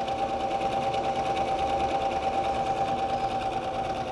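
Electric sewing machine running steadily as it stitches fabric: a constant motor whine with a fast, even ticking of the needle.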